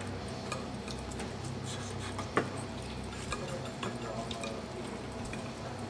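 Knife and fork clinking and scraping on a plate as steak is cut, with scattered light clicks and one sharper clink a little over two seconds in, over a steady low background hum.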